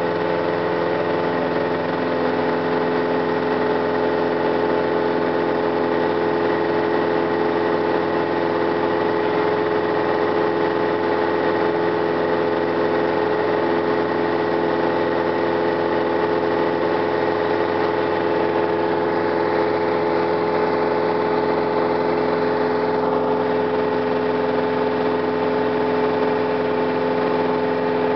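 Piper Cherokee 140's four-cylinder Lycoming engine and propeller running steadily at takeoff power through the climb-out, heard from inside the cabin as a constant, unchanging drone.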